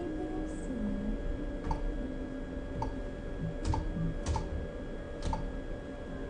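Sharp clicks of keys and buttons on an ultrasound machine's control panel, about five of them spread over a few seconds, over a steady electrical hum.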